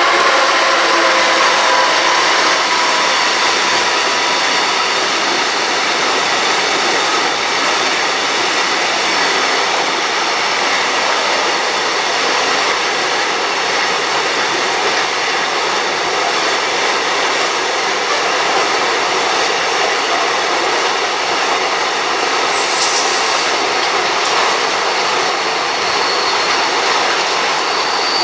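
Freight train rolling past close by, with steady wheel-on-rail noise from the wagons. A high, thin wheel squeal comes in near the end.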